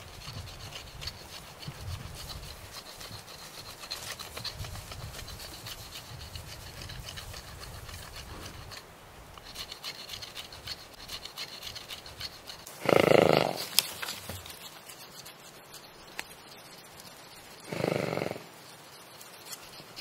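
An animal calls twice: a short call about thirteen seconds in and a shorter, quieter one about five seconds later.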